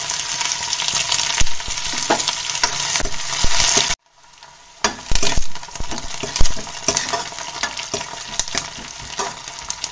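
Sliced onions sizzling in hot oil in a kadhai, stirred with a steel ladle that scrapes and clinks against the pan. The sound cuts out abruptly for under a second about four seconds in, then the frying and ladle clinks resume.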